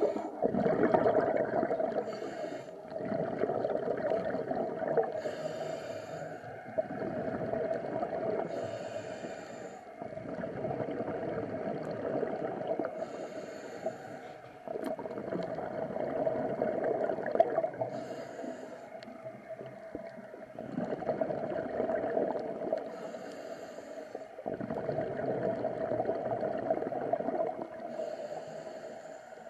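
A diver breathing through a regulator underwater: short hisses about every four to five seconds alternating with longer stretches of bubbling that swell and fade.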